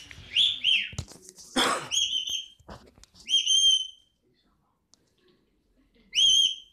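Rainbow lorikeet calling: about five short whistles, each rising and then holding, with one harsh screech about a second and a half in.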